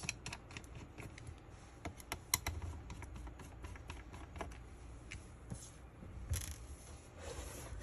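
Small screwdriver working the tiny screws at the corners of a laptop display panel: scattered light clicks and ticks of metal on metal, with a few brief scrapes as parts are handled.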